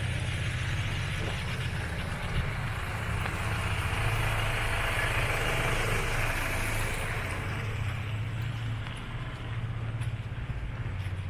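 A van drives past on wet asphalt: the swish of its tyres on the wet road swells to a peak about five seconds in and then fades, over a steady low engine hum.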